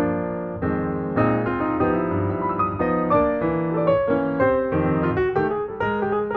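Background piano music with notes in quick succession.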